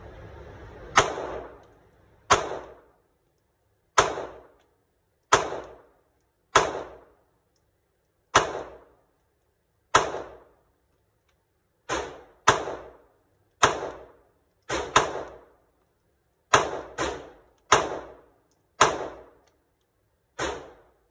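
Semi-automatic pistol fired in slow, steady strings at an indoor range, about seventeen shots. They come roughly every one to two seconds, with a few quicker pairs, and each sharp report rings briefly off the range walls.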